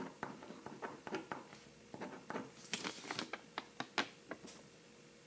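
Faint ballpoint pen writing on a paper card, a run of short scratches and taps, with a brief rustle of the card being handled about halfway through.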